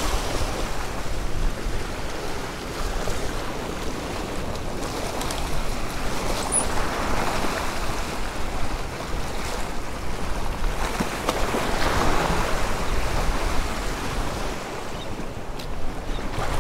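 Sea waves washing and breaking against the rock jetty, surging louder twice and falling back, with wind rumbling on the microphone.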